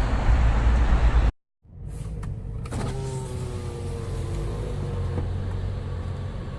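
Car traffic rumbling by, then after a short dropout a car's electric window motor whining for about two seconds, a few clicks starting it. A low engine rumble runs underneath inside the car.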